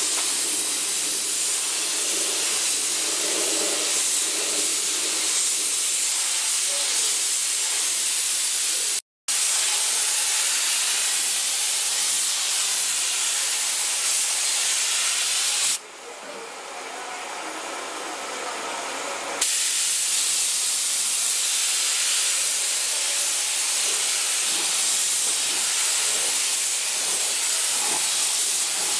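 Air spray gun hissing steadily as it sprays primer. The sound cuts out for a moment about nine seconds in, and runs quieter for about four seconds a little past the middle.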